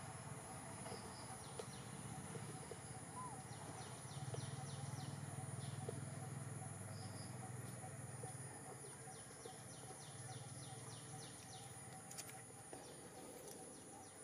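Faint forest ambience: a steady high-pitched insect drone with runs of quick repeated insect chirping, a few short bird chirps, and a low hum in the middle.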